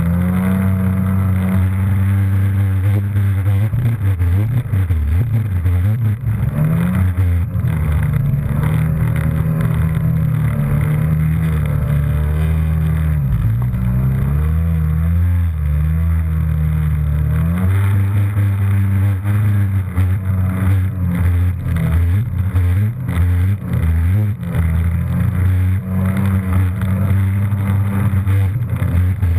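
Jet ski engine running at speed, its pitch dipping and climbing between about 12 and 17 seconds in as the throttle changes, with water spray rushing against the hull.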